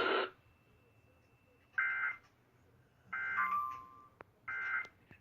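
NOAA Weather Radio Emergency Alert System end-of-message data code: three short bursts of warbling two-pitch digital data tones, about 1.3 s apart, marking the end of the tornado warning broadcast.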